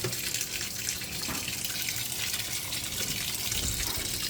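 Hot water pouring steadily into the tub of a Speed Queen top-loading washing machine as it fills, splashing onto the water already in the drum.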